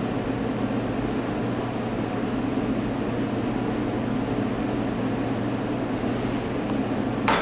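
Steady low hum of running kitchen machinery or ventilation, with one sharp tap of a chef's knife on a plastic cutting board near the end.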